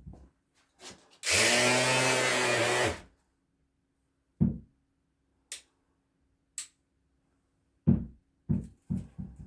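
Aldi electric sander switched on briefly, its motor running steadily for under two seconds before stopping, followed by a few separate knocks and two short clicks from the tool being handled.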